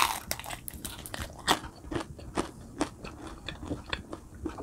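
A close-up crunching bite into crispy fried food right at the start, followed by irregular crunching as it is chewed.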